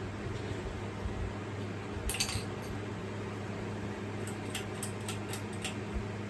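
Hampton Bay Huntington III 52-inch ceiling fan running on high speed: a steady motor hum with the rush of moving air. Over it come light clinks, a short cluster about two seconds in and about six quick ticks a little later.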